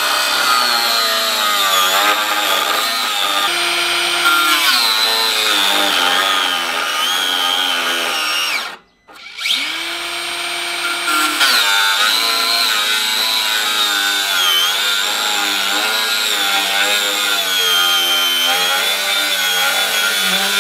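Parkside PWSA 20-Li C3 cordless angle grinder cutting through ribbed steel rebar with a metal cutting disc: a loud high whine over a grinding rasp, its pitch dipping and wavering as the disc is pressed into the bar. The sound cuts out briefly about nine seconds in, then carries on.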